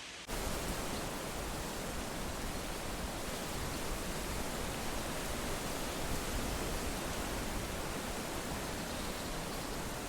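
Steady wind rushing through leaves, an even wash of noise that jumps up suddenly just after the start and then holds steady.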